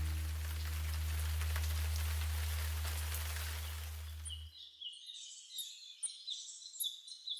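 A low droning tone over a hiss of noise fades out over the first four seconds or so; then birds chirp, short high calls repeating to the end.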